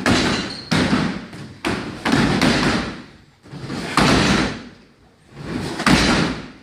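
Kicks and knee strikes landing on free-standing heavy bags: about six irregular heavy thuds and slaps, each ringing on briefly.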